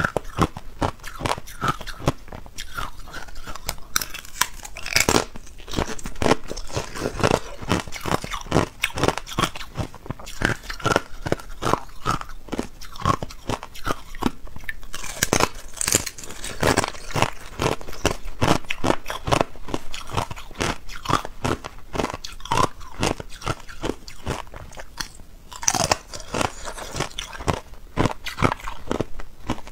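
Hard ice being bitten off a thin sheet and chewed, a steady stream of crisp cracks and crunches, several a second.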